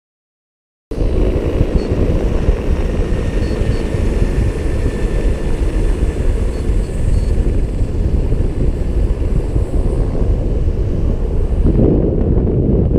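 Wind buffeting the microphone of a camera carried on a paraglider in flight: loud, gusty rushing that cuts in suddenly after about a second of silence.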